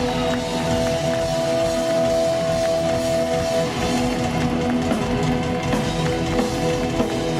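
Gothic doom metal band playing live, without vocals: guitars, bass and drums under sustained notes, one of them held for about three seconds near the start.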